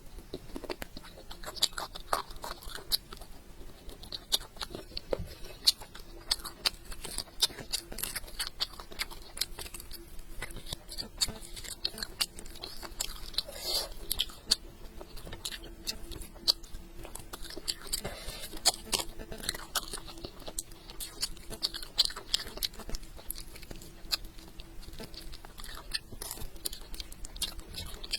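A person eating close to the microphone: irregular chewing and biting with many sharp wet mouth clicks.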